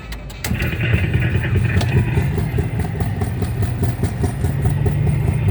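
RG Mitchell Fire Fox helicopter kiddie ride starting up about half a second in after a few clicks: its drive motor runs with a steady fluttering rumble and a higher whine over it.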